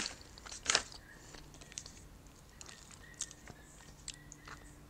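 Soft mouth noises from an eater who has stopped eating: a lip smack at the start and another about 0.7 s in, then a few faint clicks over quiet room tone.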